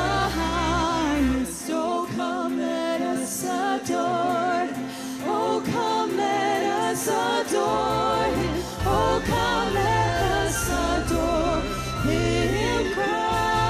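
Church worship band playing with singing: a wavering sung melody over keyboard and bass, with cymbal washes. The bass drops out for several seconds partway through and comes back in.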